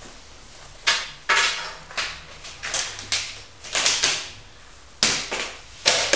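Black plastic crate being handled and set down on a hard stone floor: a series of about nine sharp plastic clacks and rattles at uneven intervals.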